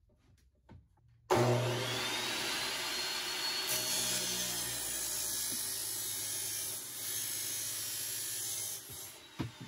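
Abrasive metal chop saw starting up about a second in, its motor whine rising as the disc spins up, then a steady grinding as it cuts through perforated steel angle. The sound drops off near the end as the saw winds down, with a few clicks.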